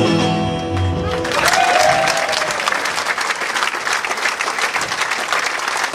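A live band's last chord, with electric guitar, rings out and ends about a second in, and the audience breaks into steady applause.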